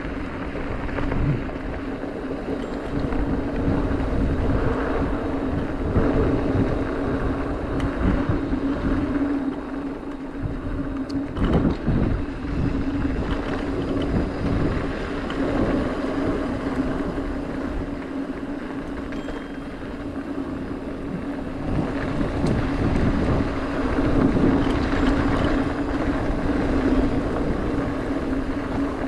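Mountain bike rolling fast down a dirt track: tyres on dirt and loose gravel with wind buffeting the microphone. A steady hum runs underneath, and the noise swells on faster stretches.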